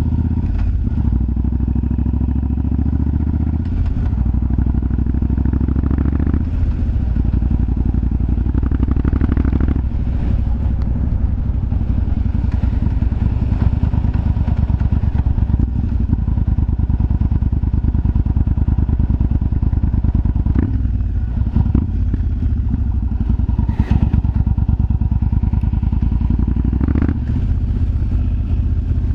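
Yamaha BT1100 Bulldog's V-twin engine running steadily. The engine note shifts a few times, and sharp exhaust pops come through a few times in the second half.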